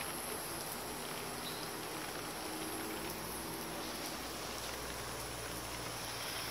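Steady hiss of a shower of water spraying down over garden plants and a long-billed corella's feathers.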